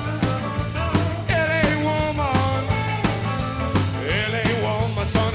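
Background music with a steady drum beat, a low bass line and a wavering lead melody.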